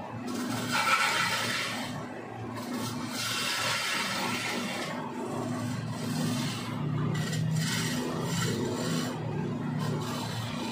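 Wood lathe spinning a long wooden post while a hand-held turning chisel cuts into it: a rasping scrape that swells and fades in several uneven passes, loudest about a second in, over a steady low hum.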